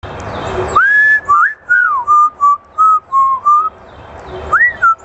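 African grey parrot whistling a tune in clear notes: a long high note, a falling slide and a run of short notes, then the phrase beginning again near the end.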